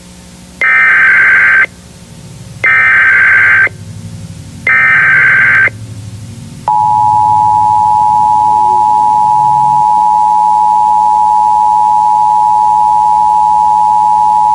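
Emergency Alert System tones. First come three one-second bursts of the digital SAME header code, about a second apart. Then, from about six and a half seconds in, the two-tone EAS attention signal holds steady for about eight seconds and cuts off sharply.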